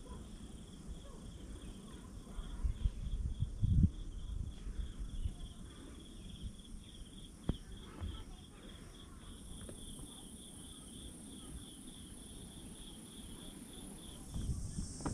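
An insect chirping steadily: a high-pitched note pulsing several times a second, repeating evenly throughout. Under it a low rumble on the microphone, with a few louder low bumps a few seconds in.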